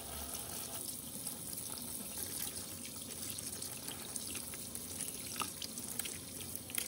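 Water running from a kitchen tap into a stainless steel sink: a steady splashing stream with scattered small drips and splashes.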